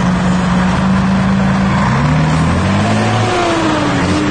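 Diesel engine of a Scania T113H heavy tow truck running close by, a steady low note that shifts and rises and falls in pitch about halfway through as the engine revs.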